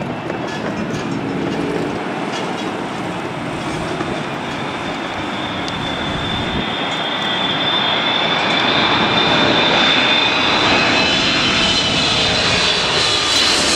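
Jet engines of a twin-engine widebody airliner, a Boeing 787, on landing approach passing low overhead. The rumble grows steadily louder, and a high fan whine comes in over the second half. Near the end the whine begins to fall in pitch as the jet goes over.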